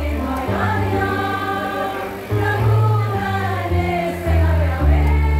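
Women's choir singing in harmony to electronic keyboard accompaniment, with held bass notes changing about once a second beneath the voices.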